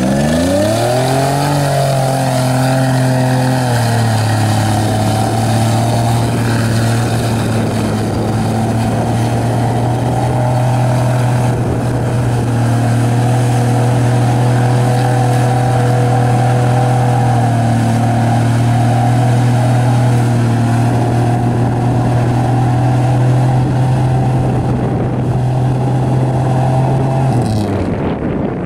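Modified Toyota off-road truck's engine revving up hard within the first second or two, then held at high revs for a long stretch as it ploughs through deep mud, before the revs drop near the end.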